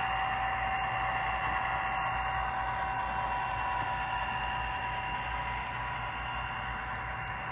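Model freight train running along the layout track behind a Norfolk Southern model diesel locomotive: a steady electric whine over a continuous rolling hiss of wheels on rail, easing off slightly near the end.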